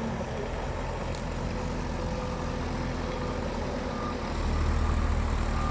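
Heavy vehicle engine running steadily with a low drone, growing louder about four seconds in as it revs or comes closer.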